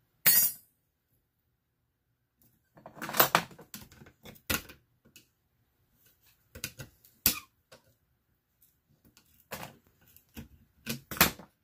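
Irregular sharp clicks, taps and clatters of a screwdriver prying parts off an old computer motherboard, with small salvaged pieces tossed onto the scrap pile on the workbench. The busiest clatter comes about three seconds in.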